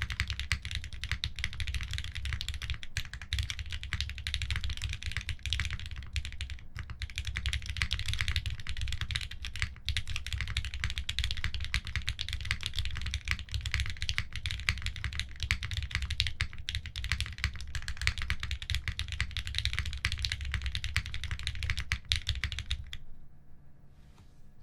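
Continuous fast typing on a Frog mini HHKB custom keyboard with Gateron CJ linear switches, an aluminum plate and GMK keycaps: dense, rapid keystroke clacks that stop about a second and a half before the end.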